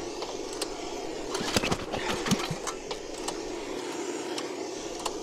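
Cold 168F single-cylinder diesel being pull-started by its recoil starter, with no glow plug and its intake preheated by a torch. There is a cluster of sharp knocks about one and a half to two and a half seconds in, over a steady hiss.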